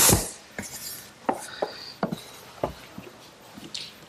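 Pneumatic nailer firing into a walnut board: a sharp bang with a short hiss of exhaust air at the start and again at the very end, with several lighter knocks between as the case is handled.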